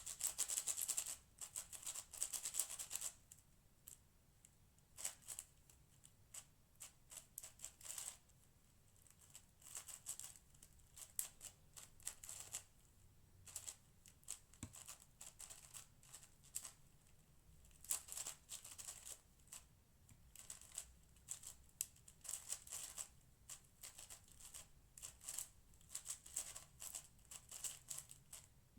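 Layers of a Cosmic Shadow M 6x6 speedcube clicking and clacking as they are turned in quick runs of moves, broken by short pauses of a second or two.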